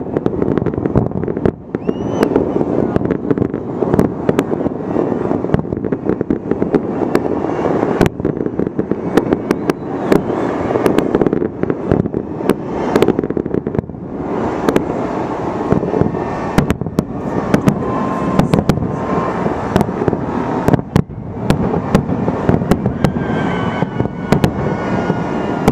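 Fireworks display going off continuously: a dense rumble of launches and bursts with many sharp bangs and crackles throughout.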